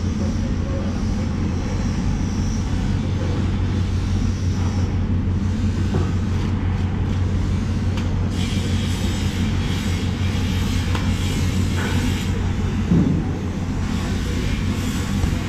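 Steady low machine rumble, like a running engine, with a few faint clicks and a brief louder low sound about 13 seconds in.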